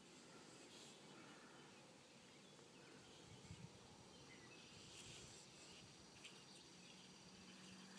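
Near silence: faint outdoor background hiss with a few soft ticks about three and a half and five seconds in.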